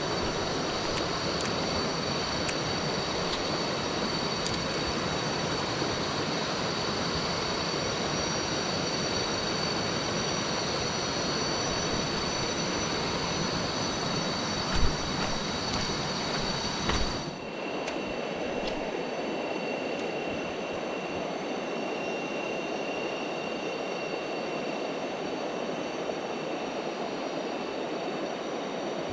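Steady rushing of river rapids, with steady high-pitched tones over it. About 17 seconds in the sound changes abruptly: the low rumble drops away and a different, lower high tone comes in.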